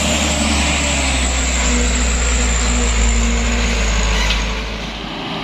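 A loaded truck's diesel engine running and its tyres on a dirt road as it drives past. A deep rumble swells, then fades about four and a half seconds in.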